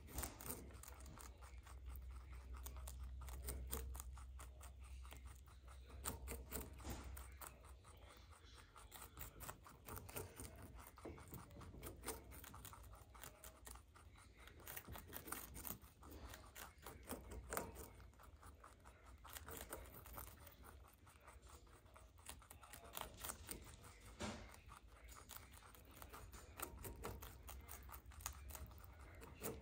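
Baby rabbits chewing crisp cabbage leaves: a faint, quick, irregular crunching of small bites.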